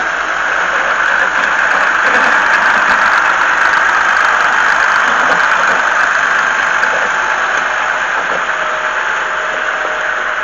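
Snow-clearing vehicle's engine running steadily, with a continuous rushing noise.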